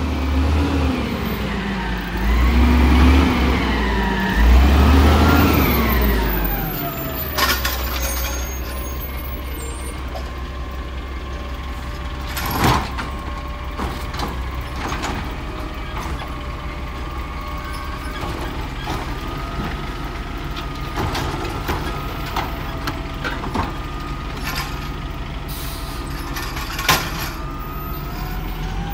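Garbage truck with a Wayne Curbtender side-loader body pulling up, its diesel engine revving up and down for the first several seconds. It then settles to a steady run under a level hydraulic whine as the automated arm works a trash cart, with a couple of sharp clanks.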